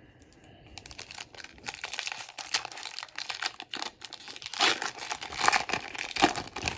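A plastic trading-card pack wrapper being torn open and crinkled, a dense crackling that starts about a second in and is loudest near the end.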